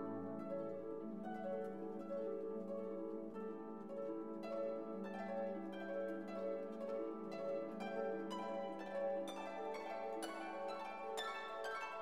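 Instrumental background music: plucked, harp-like notes over held tones.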